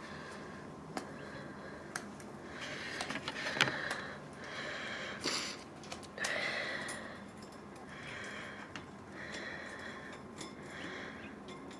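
Caged pet birds making soft, scratchy chatter with scattered sharp clicks, in several short bouts.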